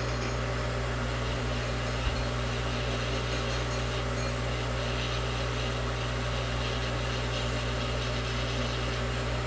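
Steady low hum of a small fan motor, with one faint click about two seconds in.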